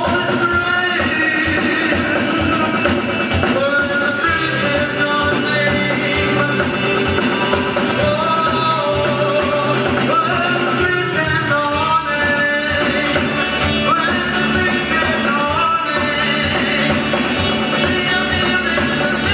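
Rock music with a sung melody over a steady drum beat.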